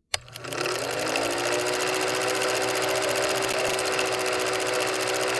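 Intro sound design: a sudden hit, then a low droning chord that glides up during the first second and holds, over a fast, steady mechanical clatter like a running film projector.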